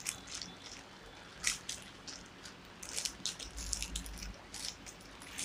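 Clear plastic wrap being pulled off a small box and crumpled by hand: irregular, scattered crinkles and crackles.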